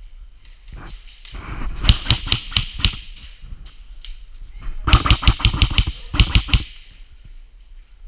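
Airsoft guns firing in two volleys of quick sharp shots, several a second. The first volley starts about a second and a half in, and the second, louder one about five seconds in.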